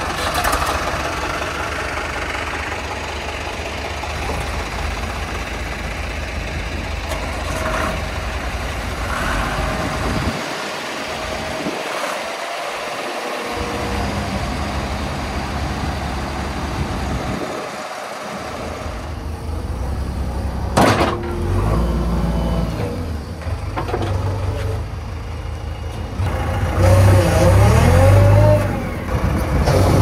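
Heavy diesel engines of farm tractors, tipper trucks and a backhoe loader running and revving, with a sharp knock about two-thirds of the way through and the loudest revving near the end.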